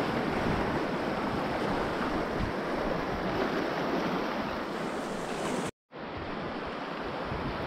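Steady rush of river rapids around an open canoe running white water, with some wind on the microphone. The sound cuts out for a moment about six seconds in, then carries on.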